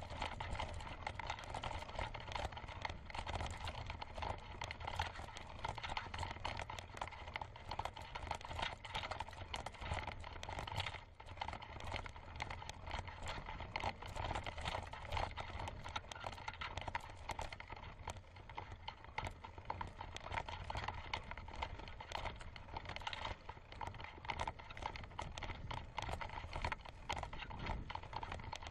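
Mountain bike climbing a rough dirt track: a constant clatter of rattling bike parts and tyres crunching over sand and stones, over a steady low rumble.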